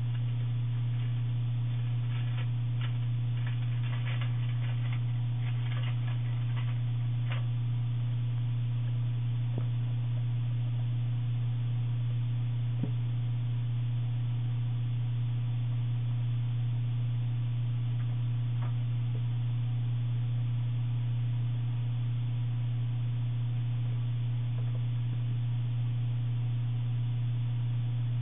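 Steady low electrical hum with a fainter higher overtone. Faint scattered ticks and scratches come in the first several seconds, and a single sharp click about 13 seconds in.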